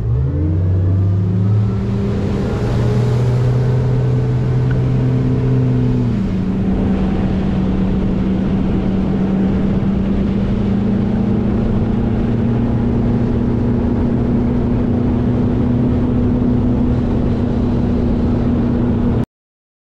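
Twin Mercury 300 outboard engines accelerating the boat onto plane, their pitch climbing over the first six seconds, then running steady at cruising speed. The sound cuts off suddenly near the end.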